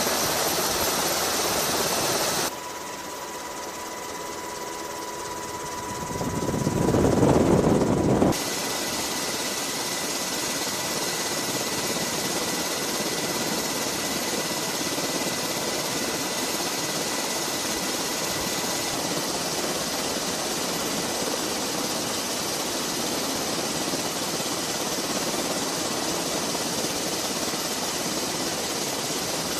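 Navy MH-60S Sea Hawk helicopter running nearby: a steady rushing noise with a thin steady whine, changing abruptly at edits. About six to eight seconds in, a louder rushing surge swells and then cuts off.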